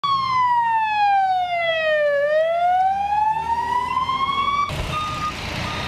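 Ambulance siren wailing in one slow cycle, falling in pitch for about two seconds and then rising again. It cuts off suddenly near the end, where street noise with a few short beeps takes over.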